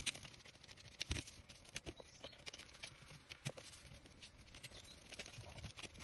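Faint, scattered clicks and taps of an insulated screwdriver working a terminal screw on a plastic double socket faceplate held in gloved hands.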